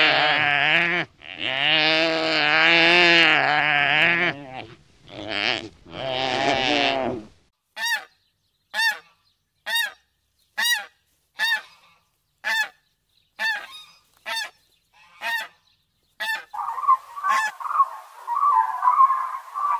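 Animal calls: several long, wavering calls in the first seven seconds, then a series of short, sharp calls a little more than once a second, then a busy chatter near the end.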